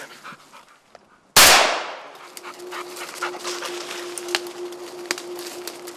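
A single shotgun shot about a second and a half in: a sharp crack that dies away within half a second. Around it are small snaps and rustles from the undergrowth, and a faint steady whine runs on after the shot.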